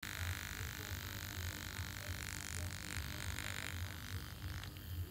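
Small 12-volt DC motor running from a 3.7-volt battery, giving a steady high whine over an uneven low hum; the whine drops away near the end.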